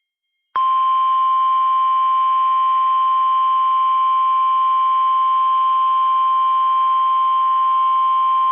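NOAA Weather Radio 1050 Hz Warning Alarm Tone: one steady, unbroken beep starting about half a second in. It is the signal that a warning is about to be read and sets off tone-alert weather radios.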